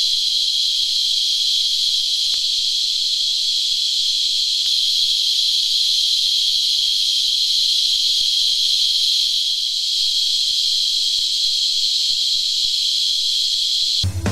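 Cicada singing: a continuous high-pitched buzz that holds steady without a break. Drum-backed music cuts in at the very end.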